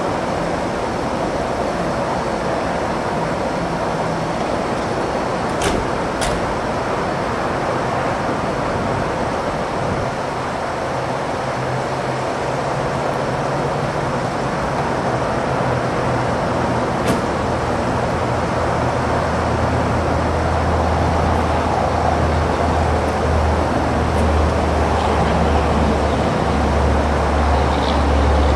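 Fire burning in a RIDGID job box: a steady rushing noise with a few sharp pops, two close together about six seconds in and one about seventeen seconds in. A low engine-like hum comes in and grows louder over the last ten seconds.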